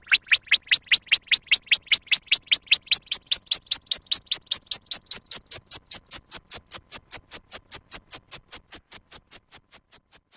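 Synthesized sci-fi sound effect: a rapid train of electronic pulses, about five a second, that grow thinner and brighter in tone and fade away near the end.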